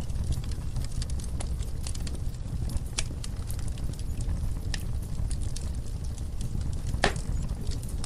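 Logs burning in a wood fireplace: a steady low rumble of flames with scattered crackles and pops, the sharpest pop about seven seconds in.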